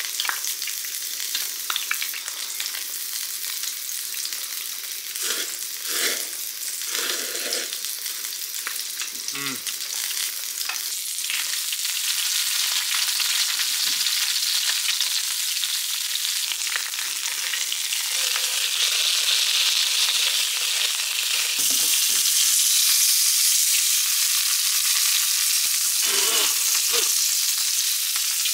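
Thick-cut pork neck steak sizzling in a frying pan on a gas-canister camp stove, a steady frying hiss that grows louder about halfway through. In the first several seconds a metal spoon clinks against a small metal pot as it stirs.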